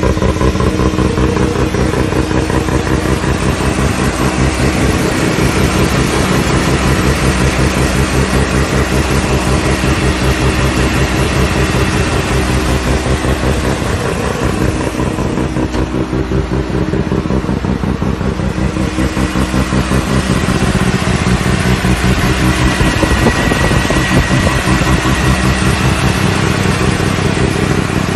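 Mazda RX-7's two-rotor Wankel rotary engine running through its exhaust with a rapid pulsing note; the engine speed shifts a little, with the note a bit duller for a few seconds near the middle.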